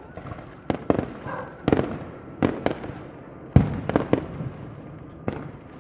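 Fireworks bursting overhead: a string of sharp bangs at irregular intervals, the loudest about three and a half seconds in.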